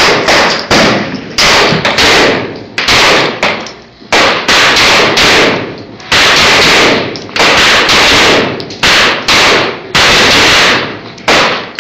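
Semi-automatic pistol firing one shot after another at an uneven pace, roughly one to two a second, each blast trailing off before the next.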